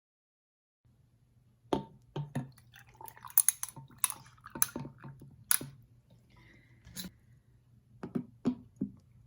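Scattered sharp clicks and knocks of small objects being handled, some ringing briefly, over a steady low hum of room tone.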